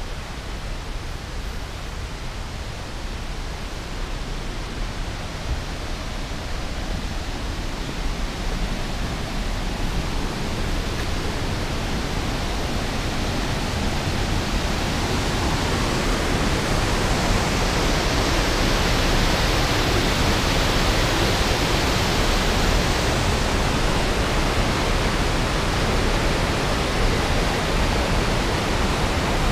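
White water of a mountain creek rushing over rocks and a waterfall in a gorge: a steady rushing that grows louder over the first half and then holds.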